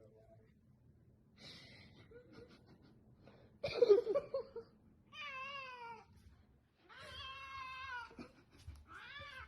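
A cat meowing: three drawn-out, wavering meows in the second half, the middle one the longest, after a loud short burst of sound about four seconds in.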